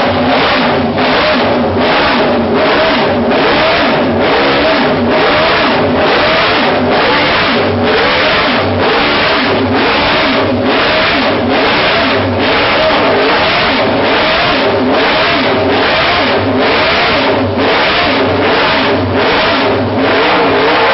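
Eight-cylinder car engine exhaust being revved, the sound surging and easing in a steady rhythm a little under twice a second.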